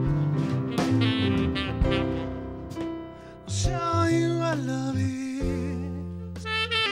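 A band playing a jazzy tune, a saxophone carrying the melody over bass, with one long wavering note about halfway through.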